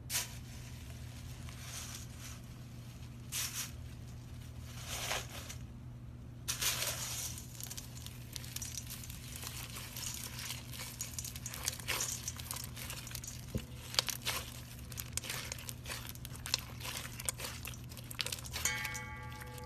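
Slime being squeezed and worked by hand, giving crackly, crinkling pops: a few separate bursts at first, then dense, continuous crackling from about a third of the way in. A steady low hum runs underneath, and a short pitched tone sounds near the end.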